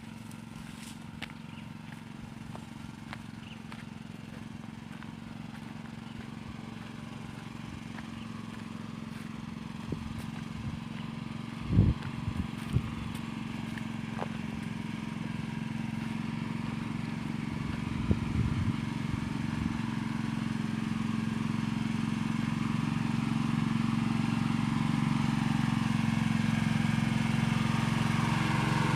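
Doorsmer pressure-washer machine running with a steady, even hum that grows slowly louder, with a few low thumps about twelve and eighteen seconds in.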